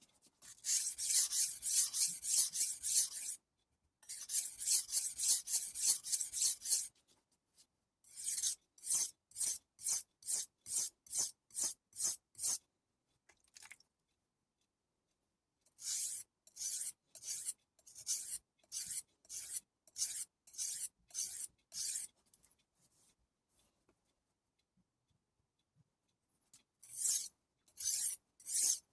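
Steel blade of a Global G-48 santoku scraping across the coarse 200-grit side of a soaked Chroma whetstone while an edge is raised. Two long stretches of continuous scraping, then sets of short back-and-forth strokes at about two a second, with pauses between the sets.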